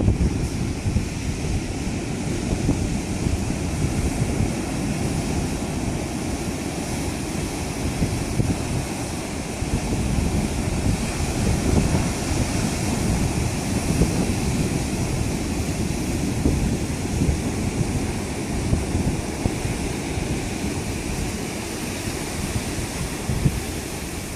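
Ocean surf breaking and washing against a concrete tetrapod breakwater, with wind buffeting the microphone as a steady low rumble.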